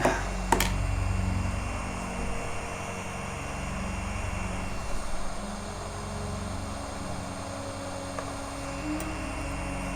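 Hot-air rework station blowing steadily on a motherboard to melt the solder under an eMMC chip, with two sharp clicks in the first second.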